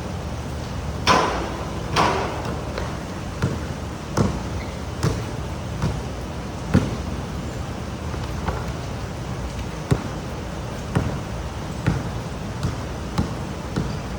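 Pouring rain hissing steadily, with irregular sharp knocks about once a second, the two loudest about one and two seconds in.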